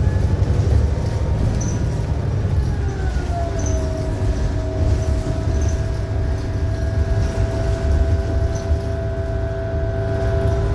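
Ride inside a 2018 New Flyer XDE60 diesel-hybrid articulated bus: a steady low rumble of the Cummins ISL9 engine and road, with a whine from the Allison hybrid drive that glides down in pitch about three seconds in and then holds steady.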